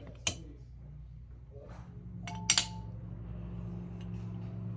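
Small metal parts clinking together as a silver piece is fitted into an anodized metal part: one sharp click about a quarter second in, then a louder double click with a brief ring about two and a half seconds in.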